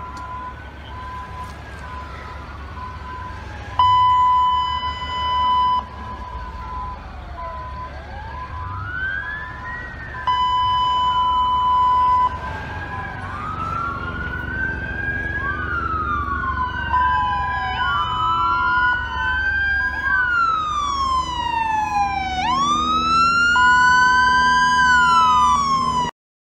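Several emergency vehicle sirens wailing at once, their rising and falling glides overlapping, with a steady high tone sounding on and off, loudest in short stretches about 4 and 10 seconds in. Near the end, one siren drops low and winds back up. A low engine rumble runs underneath.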